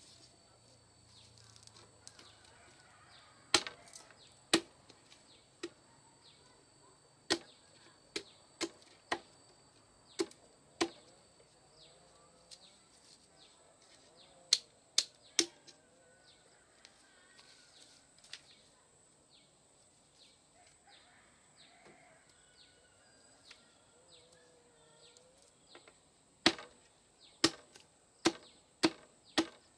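Sharp, hollow knocks of bamboo striking bamboo as slats are tapped and fitted into a bamboo fence frame, coming in small groups of two to five with a long pause in the middle.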